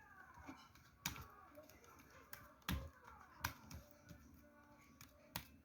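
A handful of light, sharp clicks and taps, scattered irregularly and otherwise near quiet.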